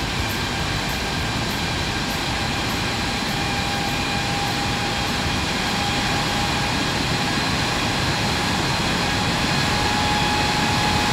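GE GEnx-2B turbofan running at high thrust: a steady jet roar with several constant whining tones from the engine.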